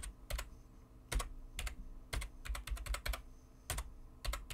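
Typing on a computer keyboard: a dozen or so irregular keystroke clicks, with a quicker run of keys near the middle.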